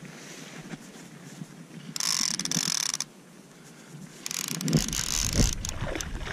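Fly reel's click-and-pawl ratchet buzzing in two spells of about a second each, as line runs on and off the reel with a salmon on the line. Wind rumbles on the microphone near the end.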